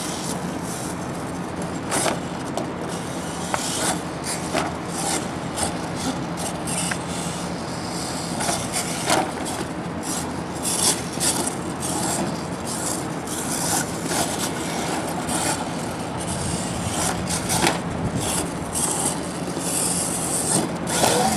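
Radio-controlled monster truck driving over grass and jumping ramps: a steady rough whirr of its motor and drivetrain with tyres scuffing, broken by scattered knocks and clatters as it lands and bounces.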